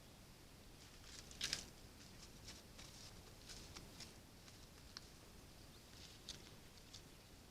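Faint light taps and scratches of birds pecking and moving about on a feeder, with a louder double tap about a second and a half in and scattered small ticks after it.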